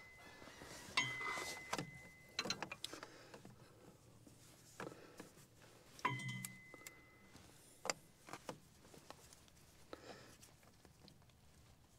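A metal filter wrench clinking and knocking against the tractor's hydraulic filter as it is worked loose. There are two ringing metal clinks, one about a second in and one about six seconds in, with scattered lighter clicks and taps between them.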